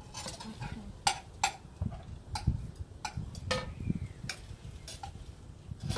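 Irregular sharp clinks and clatters of utensils against plates and dishes while people eat, about eight knocks spread over a few seconds.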